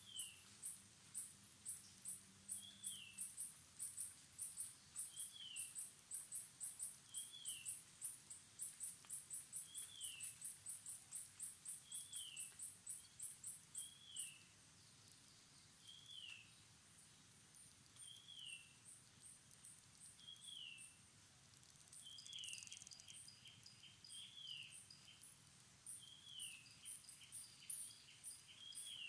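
Faint outdoor ambience of birds and insects: a bird repeats a short falling call about every two seconds, over a high, fast chirping that pulses about four or five times a second and thins out about halfway through.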